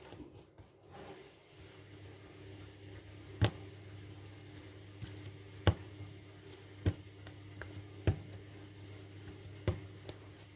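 Bread dough being kneaded by hand on a work surface, with a sharp thump every second or two as the dough is pressed and slapped down. A steady low hum runs underneath.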